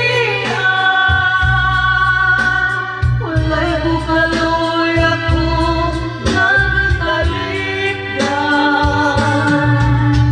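A woman singing into a microphone over karaoke backing music, holding long notes.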